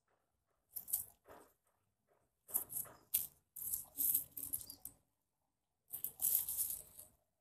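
A hand tool scraping and rubbing wet wall putty, in three short bursts of strokes: about a second in, from about two and a half to five seconds, and near the end.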